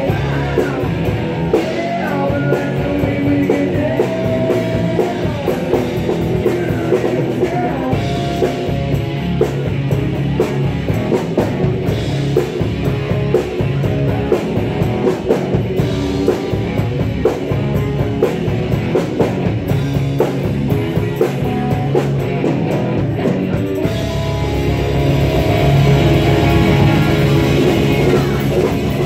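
Live country-rock band playing an instrumental stretch on drum kit, electric guitar and bass, with bending lead lines over a steady beat. It gets louder about five seconds before the end.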